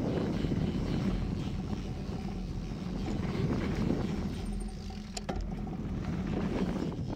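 Mountain bike tyres rumbling over a dirt trail with wind buffeting the handlebar-mounted camera's microphone, a steady low rush, with a sharp click about five seconds in.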